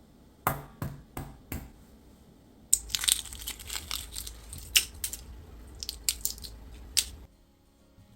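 Four sharp knocks in quick succession, then several seconds of dense crackling and crinkling with sharp snaps, like packaging being crumpled and handled. It stops abruptly near the end.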